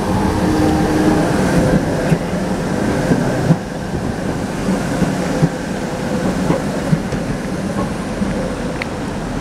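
Red-and-white Prague electric tram passing close by: a steady running hum and rumble, with a few sharp clacks from its wheels on the rails.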